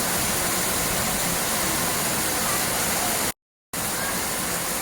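Steady rush of flowing water, like a waterfall or fast stream, broken by a brief dropout to dead silence about three and a half seconds in.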